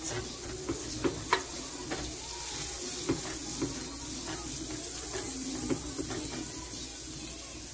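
Margarine sizzling as it melts in a hot nonstick frying pan, with a utensil pushing the pat around and a few light clicks against the pan.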